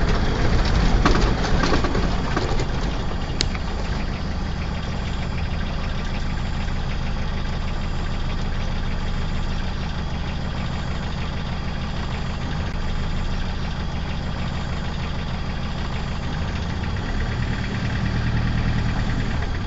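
A vehicle's engine running steadily, a low hum with an even rush of noise over it, a little louder in the first couple of seconds.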